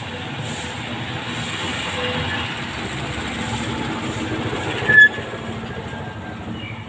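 Steady rumble of a passing vehicle that swells slightly and then eases, with one short, sharp high note about five seconds in.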